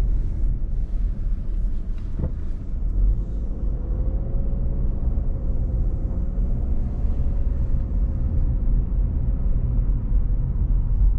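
Car driving along a paved road, heard from inside the cabin: a loud, steady low rumble of road and engine noise.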